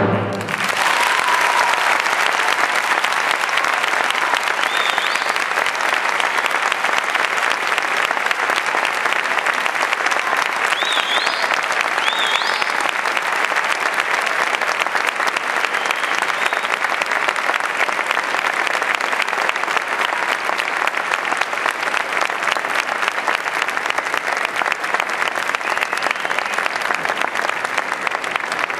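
A concert-hall audience applauding steadily for a symphony orchestra, beginning as the orchestra's final chord cuts off.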